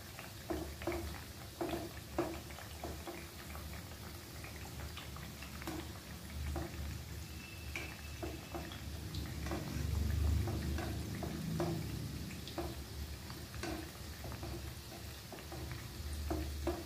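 Mathri frying in hot oil in a stainless-steel kadhai: a steady sizzle with small pops, while a wire-mesh skimmer turns the pieces over, giving scattered scrapes and taps against the pan.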